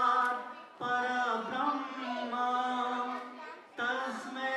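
A small mixed group of voices singing a Hindi patriotic song to acoustic guitar, holding long notes, with short breaks between phrases about a second in and near the end.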